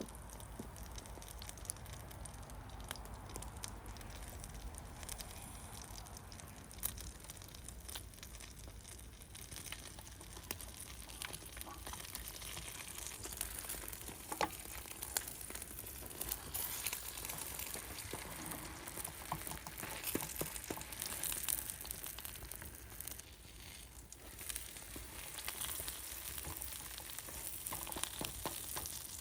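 Food frying and sizzling in a pan over a wood fire: a steady hiss with scattered sharp crackles and pops.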